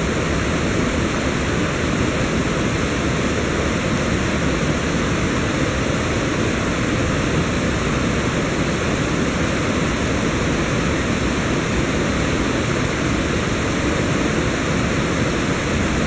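Mountain river rushing over rocks in white-water rapids: a steady, unbroken wash of water noise.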